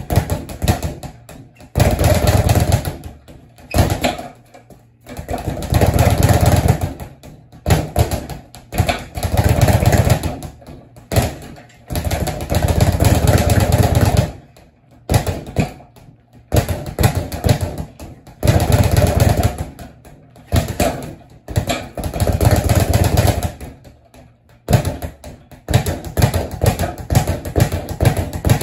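Speed bag being punched in fast runs, the bag drumming rapidly against its overhead rebound board. The runs last a second or two each, broken by short pauses.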